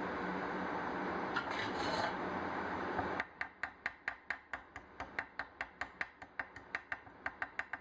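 A steady hiss, then from about three seconds in a fast run of short scraping strokes on metal, about five a second, like scrubbing with a hand wire brush.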